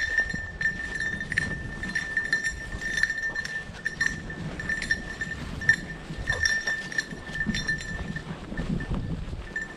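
A small bell on a bird dog's collar jingling continuously in uneven pulses as the dog hunts through the cover, over footsteps swishing through brush.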